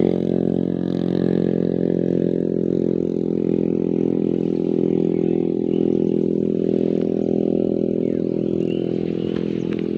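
A small engine running at a steady speed, a constant low hum with many even overtones.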